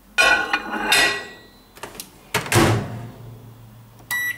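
A lidded food container clattering as it is set into a microwave oven, then the microwave door shutting with a loud knock and thud about two and a half seconds in, and a keypad button beep near the end.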